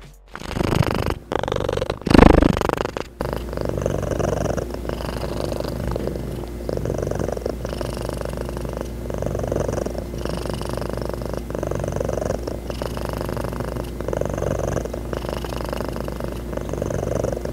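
Ragdoll cat purring close to the microphone, rising and falling about once a second. In the first three seconds, louder rustling and bumps, the loudest about two seconds in, as the cat brushes against the microphone.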